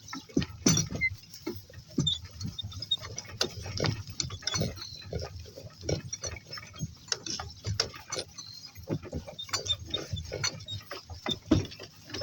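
A donkey-drawn cart moving at a walk: irregular knocks, clicks and rattles from the cart and its harness.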